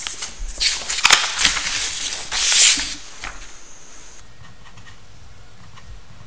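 Sheets of paper rustling and sliding as they are handled on a desk, in several loud swells over the first three seconds. Then a ballpoint pen scratching faintly on paper as a box is drawn.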